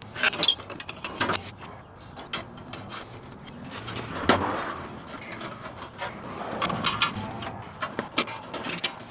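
Irregular clicks, taps and scrapes of a rectangular headlight being set into its mounting and a screwdriver working its retaining screws, with longer scraping spells around the middle and near the end.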